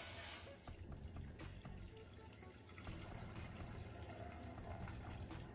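Cashew apple juice poured from a plastic bowl into a hot stainless steel pot, a steady splashing pour that is loudest in the first half second.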